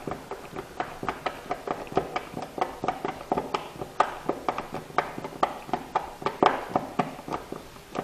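A hand-turned Phillips screwdriver driving a screw through a plastic smoke-detector base into a plastic wall anchor, giving a quick, uneven run of small clicks and creaks as the screw is turned in.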